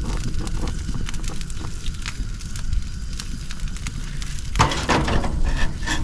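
Propane gas grill burners burning at full flame, a steady low rush with scattered crackling and ticking from the hot grates, and a brief louder noise about four and a half seconds in. The strong burn follows a reset of the tank regulator, which had been restricting gas flow as if it sensed a leak.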